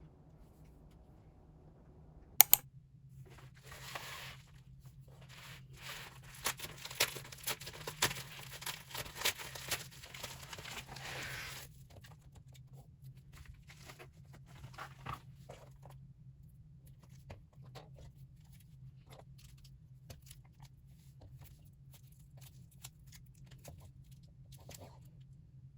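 Album packaging being torn open by hand: a sharp click, then several seconds of dense tearing and crinkling that stops abruptly, followed by light scattered clicks and rustles of handling. A low steady hum runs underneath.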